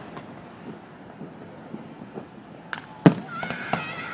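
Fireworks going off: faint scattered pops, then a loud bang about three seconds in and another just after. A high wavering tone starts near the end.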